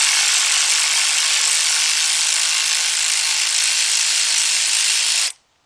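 Cordless electric ratchet running steadily, backing out the 8mm bolt that holds a cam sensor, then cutting off suddenly a little past five seconds in.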